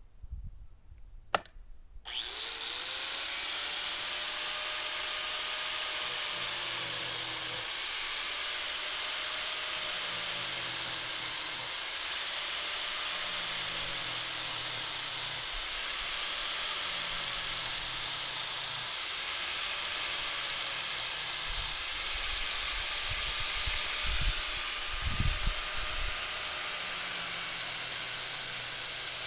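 A click, then an angle grinder with an abrasive grinding disc starts about two seconds in and runs steadily, grinding the cutting teeth of a chainsaw chain. Its sound shifts in a pattern that repeats every two to three seconds.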